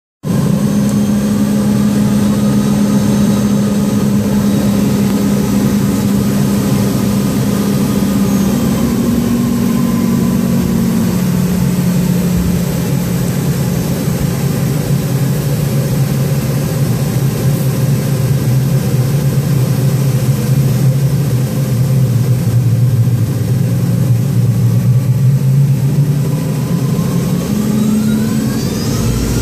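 Boeing 717's rear-mounted Rolls-Royce BR715 turbofans at low power, heard inside the cabin as a steady hum. Its pitch sags in the middle, then climbs again near the end with a rising whine as the engines spool up.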